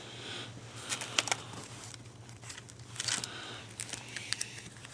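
Comic books being handled: light rustling and a few short crisp clicks, over a steady low hum.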